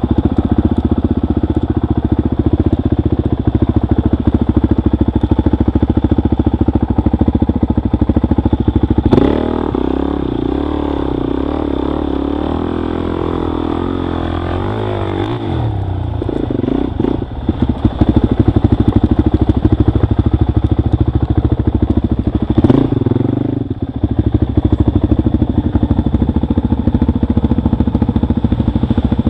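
Dirt bike engine running as it is ridden, its note changing with the throttle. It drops back about nine seconds in and rises and falls for several seconds, then runs loud again.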